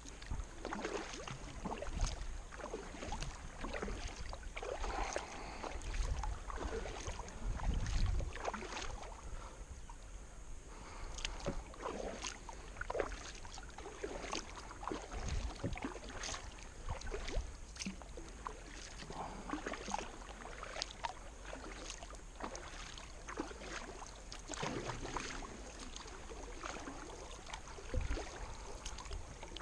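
Kayak paddling: the paddle blades dipping and splashing stroke after stroke, with drips and a few dull low thumps.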